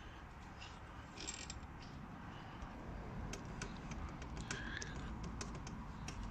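Hand tools working on motorcycle fork hardware: a short metallic clink about a second in, then a run of sharp, irregular small clicks and taps in the second half.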